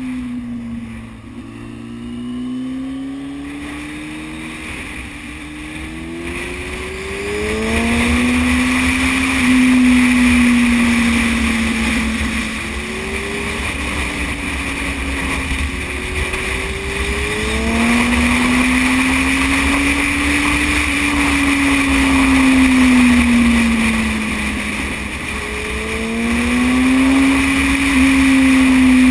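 Yamaha Thundercat sport bike's four-cylinder engine under way, its note climbing in quick sweeps several times and swelling and easing in long arcs as the rider opens and closes the throttle. A steady rush of wind noise on the microphone runs under it.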